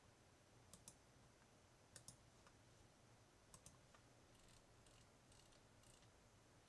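Faint computer mouse clicks: three press-and-release pairs about a second and a half apart, then a run of fainter ticks from the mouse's scroll wheel as the map is zoomed out.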